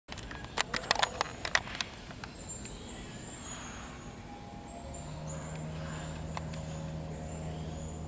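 A rapid cluster of sharp clicks in the first two seconds. Then short high thin chirps and a steady low motor hum that sets in about five seconds in.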